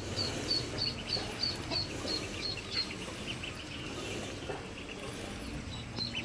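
Ducklings peeping: a run of short, high chirps at about three a second, thinning out after about two seconds and picking up again near the end.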